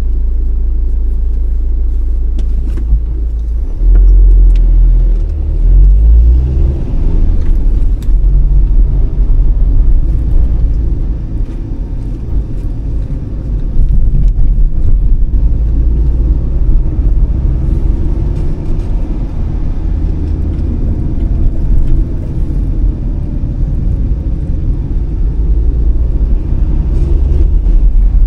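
Car on the move, heard from inside: a loud low rumble of engine and road noise that swells and eases, with the engine's pitch drifting up and down.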